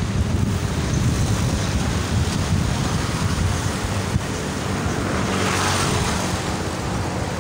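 Wind buffeting the microphone of a camera carried on a moving bicycle: a steady low rumble. About five seconds in, a rushing hiss swells and fades.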